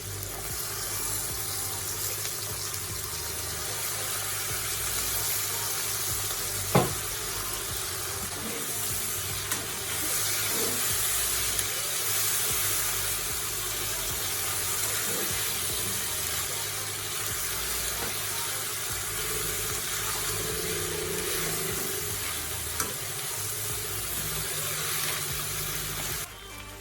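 Chow mein noodles sizzling and being stir-fried in a hot pan, a steady frying hiss with light scraping, and one sharp knock about seven seconds in.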